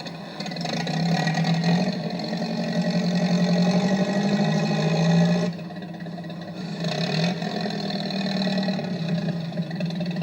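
Log-lifting machine's engine running under load, its pitch rising and falling as it works. It drops back sharply about halfway through, then picks up again.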